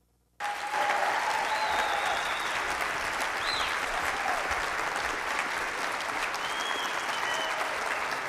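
Audience applauding steadily, with a few short high calls over the clapping. The sound cuts out completely for a split second at the very start.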